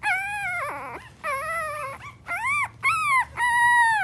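A dog giving a string of high-pitched, whining howls, about six in a row, each rising and falling in pitch.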